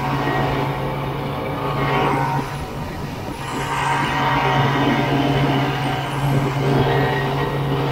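Vintage two-stroke snowmobile engine running steadily while riding across the snow, a constant drone that eases off briefly about two and a half seconds in and then picks up again.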